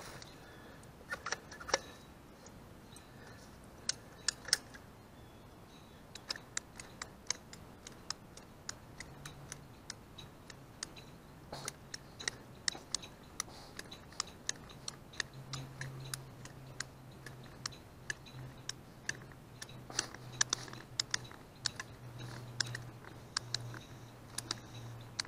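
Hand caulking gun laying a bead of sealant, its trigger and plunger rod clicking irregularly, about one to three clicks a second. A faint low hum joins about nine seconds in.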